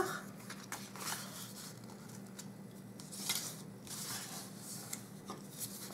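Bone folder drawn along the scored fold lines of a designer-paper box blank, creasing the folds, with the paper rustling as it is bent: a series of faint, separate papery scrapes.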